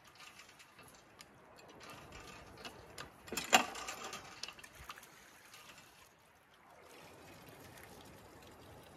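Hand-operated well pump being worked by its metal lever handle, giving scattered knocks and clanks with one loud clank about three and a half seconds in. From about six and a half seconds in, water runs steadily from the spout into a plastic jug.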